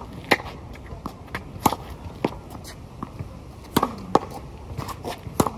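Tennis ball rallied with a racket against a concrete practice wall: sharp pops of the strings striking the ball, each followed about a third of a second later by the ball smacking the wall, with bounces on the court between, repeating every second or two.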